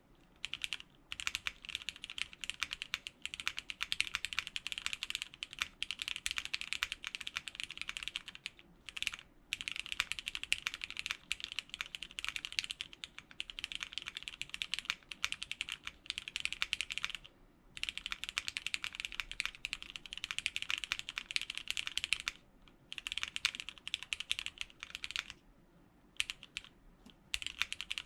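Typing on a custom Matrix Corsa mechanical keyboard with linear Cherry MX Black switches and GMK keycaps: fast, continuous runs of keystrokes broken by a few short pauses.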